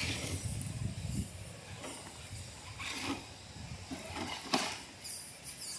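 Traxxas TRX-4 RC rock crawler working its way over loose rocks: a low rumble with a few scattered clicks and knocks as tires and chassis bump and scrape on stone. The sharpest knock comes about four and a half seconds in.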